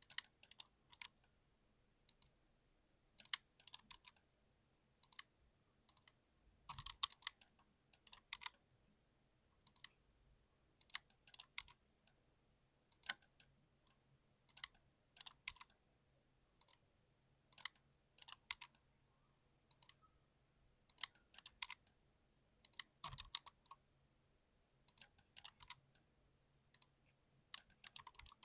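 Typing on a mechanical keyboard with TTC Red Golden switches: sharp key clicks come in irregular bursts of several keystrokes, with short pauses between them.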